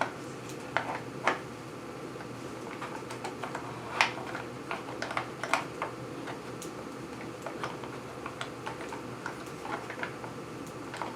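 Irregular light clicks and small taps of a saw chain being handled and fitted around the bar and sprocket of an electric chainsaw, the loudest tap about four seconds in.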